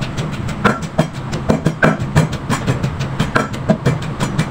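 Wooden pestle pounding shallots, salt and shrimp paste in a clay mortar, about four strokes a second in a steady rhythm, grinding Thai curry paste.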